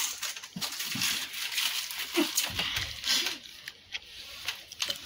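Rustling of plastic bun wrappers and scattered small crackles and clicks, with a few brief muffled hums from people eating with their mouths full.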